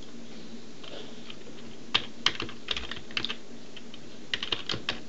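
Computer keyboard typing: two short runs of quick key clicks, the first about two seconds in and the second just before the end.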